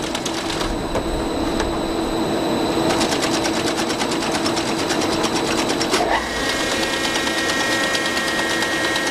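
A machine running with a rapid, even ticking of about a dozen beats a second over a steady hum; about six seconds in the hum shifts and a higher steady tone joins it.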